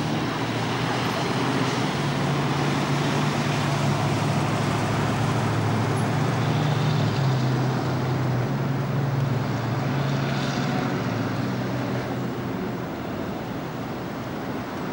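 Diesel bus engine pulling away and driving down the street, over general traffic noise. Its low note drops in pitch about halfway through, then fades toward the end.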